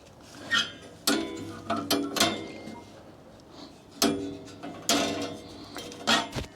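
Steel band blade and metal parts of a Wood-Mizer LT40 sawmill's blade housing being handled during a blade change: a series of irregular metal clanks and scrapes, each leaving a short metallic ring.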